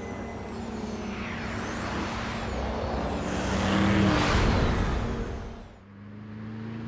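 Cartoon sound effect of a futuristic vehicle passing by: a rush of engine noise that swells to a peak about four seconds in and then dies away, with thin gliding whistles above it and low steady tones underneath.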